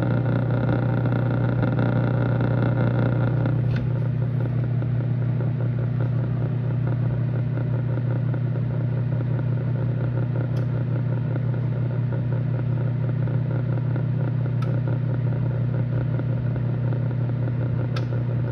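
Microwave oven running with a steady hum. The last few popcorn kernels give four single sharp pops, spread several seconds apart, as popping winds down with most kernels already popped.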